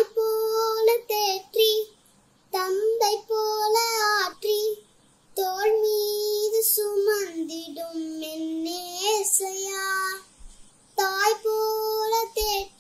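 A young girl singing solo and unaccompanied, in phrases a second or two long with short pauses between them.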